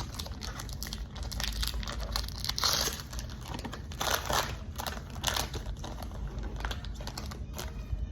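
Foil Pokémon booster pack wrapper crinkling and tearing as it is opened, in a run of short rustles and clicks.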